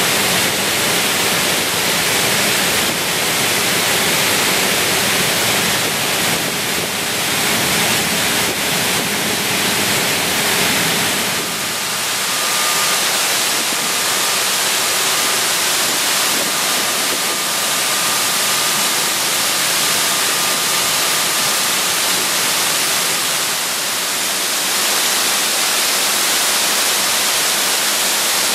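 Water spraying and raining down inside a cooling tower: a loud, steady hiss of falling water. About eleven seconds in the lower rumble eases, and for roughly ten seconds a faint steady high tone sits above the hiss.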